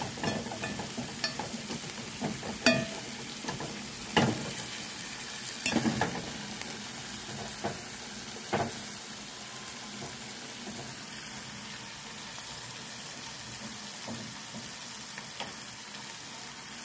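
Food sizzling as it fries in a pot, with a utensil stirring and knocking against the pot several times in the first nine seconds or so, then steady sizzling.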